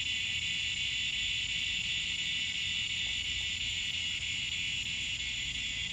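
A steady, unbroken, high-pitched chorus of insects.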